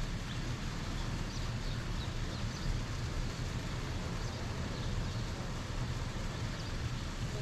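Steady outdoor ambience: a constant low noise, with scattered faint, short bird chirps high above it.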